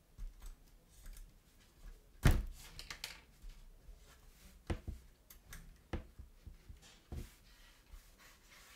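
A leather gusset strip with a zipper sewn in, handled on a cutting mat: scattered knocks and rustles. The loudest knock comes about two seconds in, followed by a few smaller ones.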